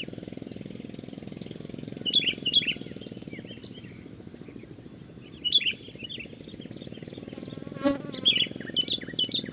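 Sooty-headed bulbul calls: short clusters of quick, bright chirps about two seconds in, again around five and a half seconds, and a longer run near the end. Under them runs a steady low buzz like flying insects, with a single sharp click shortly before the last run.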